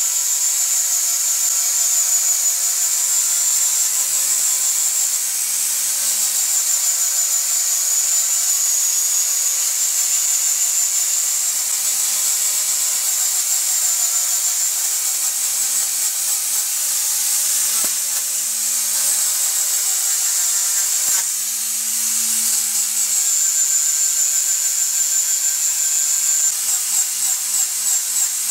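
Angle grinder fitted with a 240-grit sanding disc running steadily as it sands the live edge of an ash slab. The motor's high whine wavers a little in pitch as the disc is worked along the wood.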